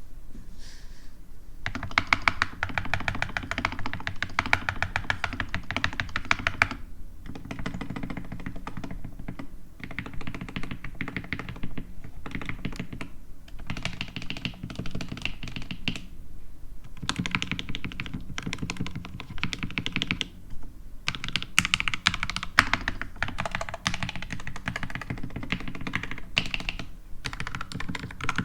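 Fast typing on an SK61 60% mechanical keyboard with lubed Gateron Red linear switches and Everglide stabilizers. The keystrokes come in runs of several seconds separated by brief pauses.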